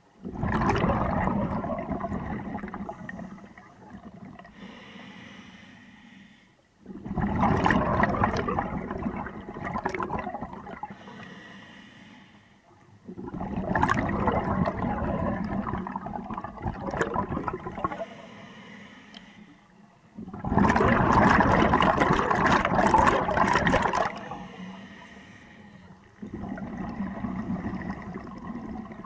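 Scuba diver's regulator exhaling: long bubbling bursts of exhaust bubbles, five of them about every six to seven seconds, with quieter stretches between as the diver breathes in.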